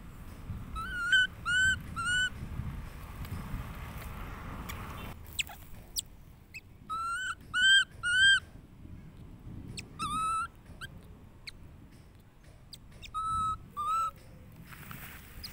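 Baby monkey squeaking: short, high, whistle-like calls that rise and fall in pitch, coming in bursts of two or three, about a dozen in all.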